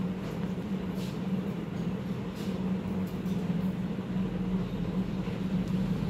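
A steady low machine hum, with a few faint clicks about one and two and a half seconds in.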